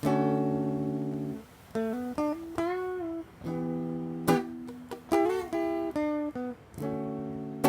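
Clean-toned electric guitar playing a song intro alone: ringing chords held for about a second each, separated by short melodic runs of single notes.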